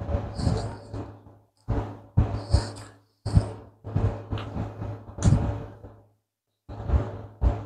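A series of knocks and thumps in short bursts about a second long, with a low hum under each burst and silent gaps between them.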